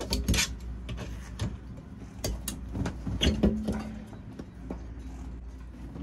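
Channel-lock pliers gripping and working a stuck nail loose from a port light window frame: a string of sharp metallic clicks and knocks, bunched near the start and again about three seconds in.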